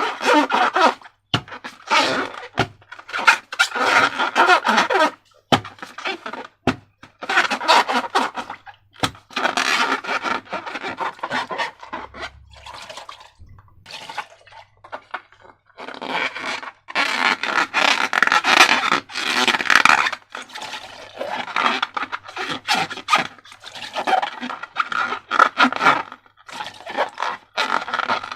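Slime being squished, stretched and mixed by hand: wet, crackly clicks and squelches in runs of several seconds, with a short pause about twelve seconds in.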